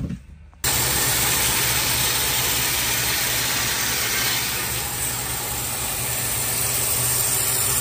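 Band saw running loud and steady as it cuts through a resinous pine burl. It starts abruptly about half a second in.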